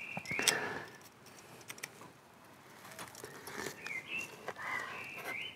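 Birds chirping with short whistled notes, near the start and again in the second half, over a few faint taps and clicks of a knife and tongs on a wooden cutting board as a grilled steak is sliced.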